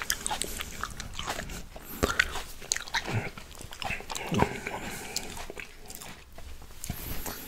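Close-miked biting and chewing of fresh red grapes: a run of sharp, wet bites and mouth clicks, the loudest about 2 and 4.5 seconds in.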